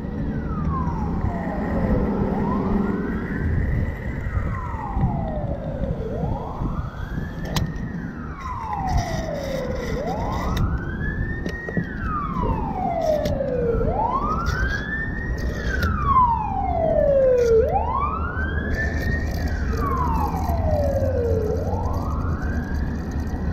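Siren wailing, its pitch sliding up and down about every four seconds and loudest around the middle, over the low steady rush of petrol being pumped into the tank.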